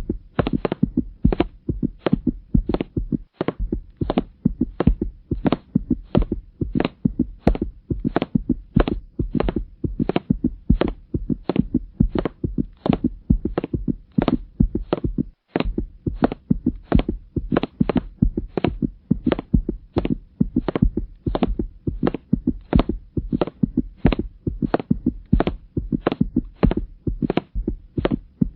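Steady, regular thumping, about two knocks a second and unchanging in pace, with two very brief dropouts.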